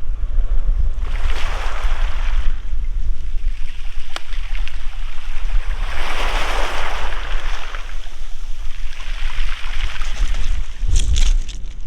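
Sea waves washing up the beach, the surf swelling to a hiss three times, under heavy wind buffeting the microphone. A few sharp clicks come near the end.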